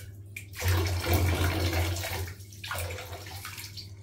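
Water poured over a child's back in a filled bath, splashing into the bathwater, with a rushing pour through the first half that then tails off.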